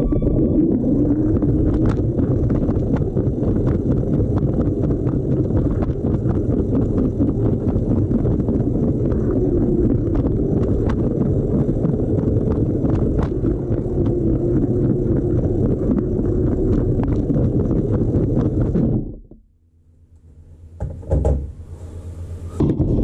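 Lego train running along plastic Lego track, heard from a camera riding on the locomotive: a steady rumble of motor and wheels with frequent sharp clicks. The running sound cuts off suddenly near the end, followed by a few knocks.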